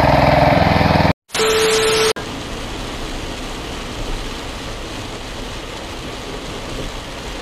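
A two-wheel tractor's engine runs with a rapid, even chugging for about a second, then cuts off abruptly. After a short steady tone, a steady rushing noise of tyres and spray on a rain-soaked motorway follows, heard from inside a car.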